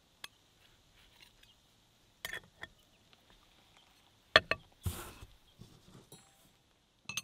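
Knocks and clinks of a pie slice being served with a metal pie server and a plate: the loudest knock, about four and a half seconds in, is the plate being set down on the table, followed by a short scrape. A ringing clink comes near the end.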